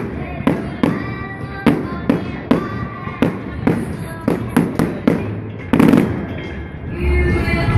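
Aerial fireworks going off in a quick series of sharp bangs, two or three a second, with a bigger, louder burst about six seconds in. Music plays underneath and grows louder near the end.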